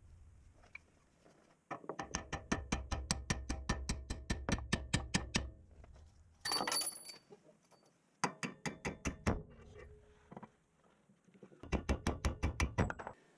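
Hammer striking a steel punch to drive out the front lower shock mount bolt: three runs of quick, even metal knocks at about seven blows a second, with a brief scraping rustle between the first two.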